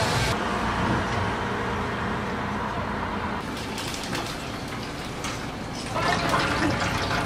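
Water running steadily, as from a tap, with light clattering in the second half.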